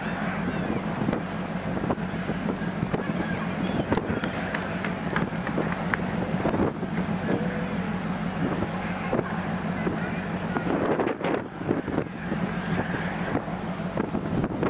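Wind buffeting the microphone on board a ferry, over a steady low hum of the ship's machinery.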